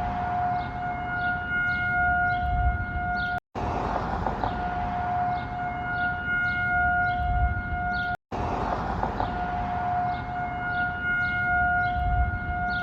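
Outdoor tornado warning siren sounding a steady, held alert tone for a tornado drill, swelling and fading in level. The sound cuts out abruptly twice for a moment.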